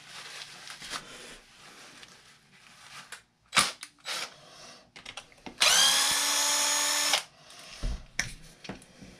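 Cordless drill-driver with a hex bit running steadily for about a second and a half, a little past halfway through, backing out a shock mounting screw on an RC truck. A few short clicks and knocks of handling come before and after it.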